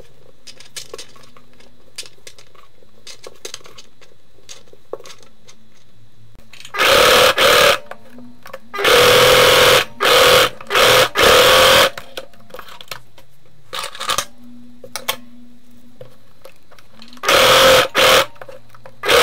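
Electric sewing machine stitching two pieces of felt together in short runs of about a second each. It starts and stops four times about halfway through and once more near the end. Before that there are only a few light clicks of the fabric and pins being handled.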